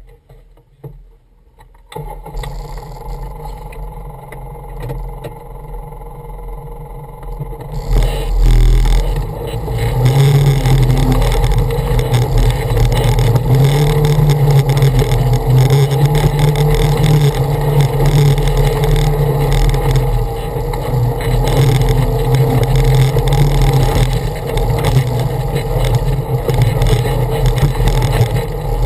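Off-road vehicle's engine heard from on board as it drives a rocky dirt trail. It is faint for the first couple of seconds, then runs with a low drone that gets much louder about eight seconds in as the vehicle climbs, and stays steady to the end.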